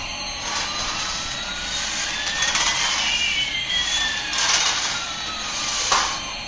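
Toy airplane's electronic jet-engine sound effect: a steady rushing hiss with two whistling tones, one slowly rising in pitch and the other slowly falling, crossing midway.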